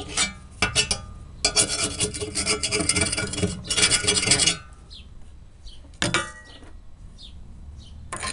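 Steel scraper blade of a five-way tool scraping loose, scaly rust off a rusty steel go-kart frame bracket, in a series of rasping strokes. The longest run of strokes lasts about three seconds, and a last short stroke comes about six seconds in.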